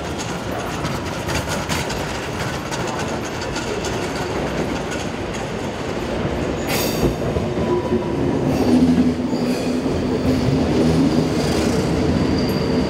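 Passenger train coaches rolling slowly over the points, their wheels clicking over rail joints and switches. About seven seconds in the sound changes to a train running through a covered station: a steady hum with a thin, high wheel squeal, a little louder.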